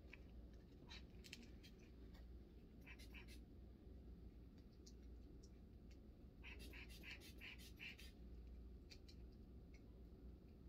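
Near silence, with faint scratchy ticks and rustles in short clusters from handling a manual blood-pressure cuff and stethoscope during a reading.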